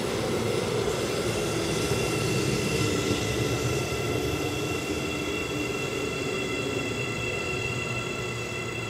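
Seibu 9000-series eight-car electric train pulling slowly into a station and braking: a rumbling run with several steady high-pitched whines, and a lower hum that falls in pitch over the first several seconds as the train slows.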